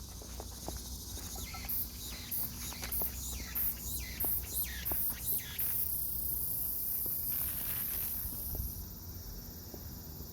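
Cicadas singing: a Meimuna opalifera (aemaemi) call of quick, high-pitched repeated phrases, a bit under two a second, that runs into a steady high buzz and stops about 9 seconds in. Large brown cicadas (Graptopsaltria nigrofuscata) can also be heard.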